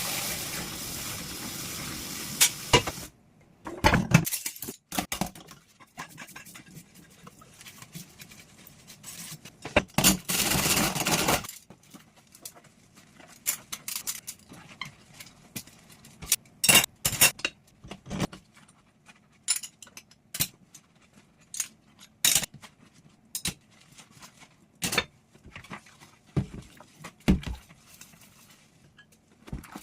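Dishes being washed by hand: water runs for about three seconds at the start and again briefly around ten seconds in, between sharp clinks and knocks of dishes and cutlery being handled and set down.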